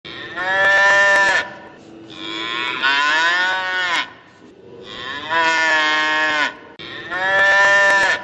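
Cow mooing: four long calls one after another, the second one falling in pitch at its end.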